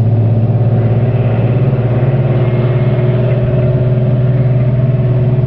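A CLAAS combine harvester's diesel engine running steadily, a low, even drone with no change in pitch.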